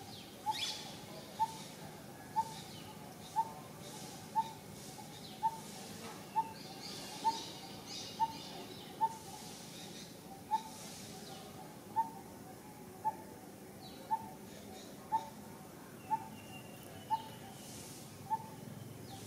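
A bird calling one short, even-pitched note over and over, about once a second, with faint higher chirps from other birds in the background.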